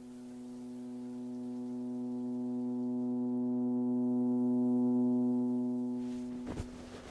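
A single sustained drone note with a stack of overtones, swelling steadily louder for about five seconds, then cutting off abruptly about six and a half seconds in, with a brief scuffing noise as it stops.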